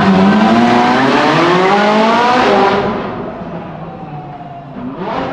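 Ferrari 458 Italia's naturally aspirated V8 accelerating hard, its note rising steadily and echoing off the tunnel walls, then fading about three seconds in as the car pulls away. Another engine note starts rising near the end.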